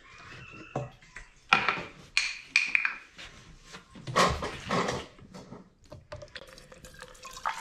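Sharp clinks and knocks, a few with a brief glassy ring, as a glass bottle, a plastic funnel and a plastic gas can are handled on a wooden workbench to set up pouring gasoline into the bottle.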